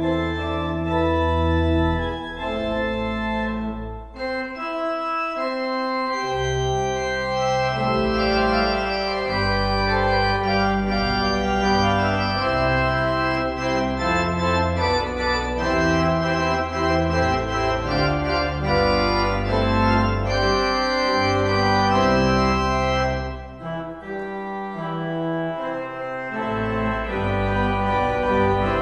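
Church organ playing a slow piece in sustained chords over deep bass notes, with two short breaks between phrases, about four seconds in and again near the end.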